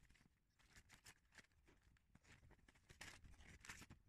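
Faint snips and rustling: steel scissors cutting a sheet of self-adhesive PU synthetic leather and the sheet being handled, a little louder about three seconds in.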